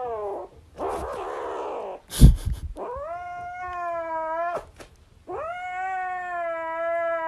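Grey kitten yowling in long, drawn-out meows that sag in pitch at their ends, with a rougher, noisy cry about a second in. A loud thump just after two seconds is the loudest sound.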